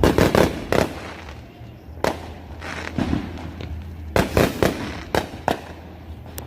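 Neighbourhood fireworks and firecrackers going off: irregular sharp bangs, bunched in quick clusters at the start and about four seconds in, with single bangs between. A steady low hum runs underneath.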